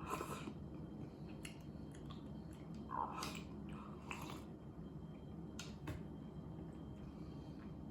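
Quiet eating sounds: chewing and about six short light clicks and taps of utensils, the loudest about three seconds in.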